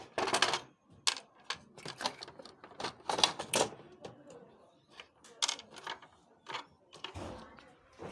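Irregular clicks, knocks and short scrapes of plastic and metal parts being handled and unscrewed inside a Xerox WorkCentre 5855 copier's scanner section.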